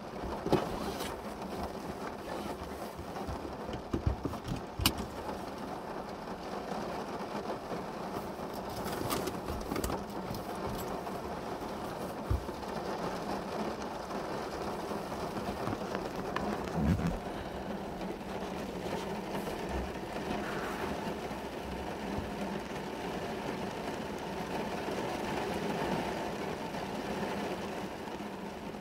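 Heavy rain drumming steadily on a car's roof and windows, heard from inside the car, with scattered louder taps of drops hitting the glass.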